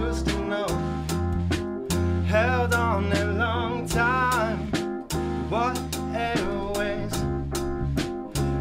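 A live band playing a song: strummed acoustic guitar and electric bass with sharp drum hits keeping the beat, and a vocal line sung over it from about two seconds in.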